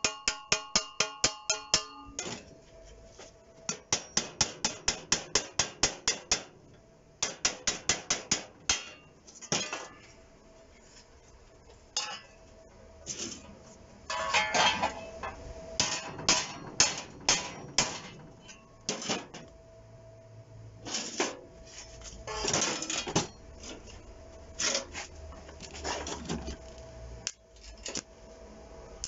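Hammer blows on curved pieces of scrap gas-bottle steel held on an anvil, flattening them into plates. Fast runs of strikes, about six a second, in the first nine seconds, then slower, irregular blows, with the steel ringing.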